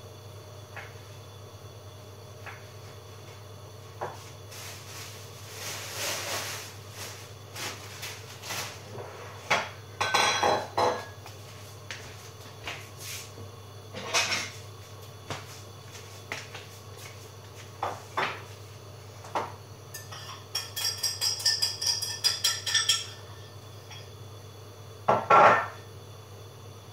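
Scattered clinks and knocks of household clatter, with a run of rapid rattling about three quarters of the way through and the loudest clatter near the end, over a low steady hum.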